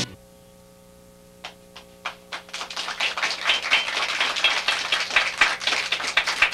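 Low electrical hum, then a few scattered hand claps about a second and a half in that quickly build into steady applause from a small studio audience.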